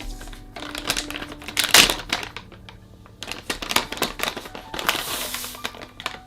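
Plastic crinkling and crunching in irregular bursts, the loudest about two seconds in, over faint background music.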